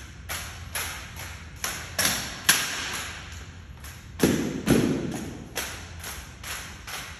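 Rifle drill: a rapid, irregular series of sharp clacks and smacks as hands slap and catch drill rifles, each echoing in a large hall. About four seconds in come two heavier, deeper thuds of rifle butts or boots striking the concrete floor.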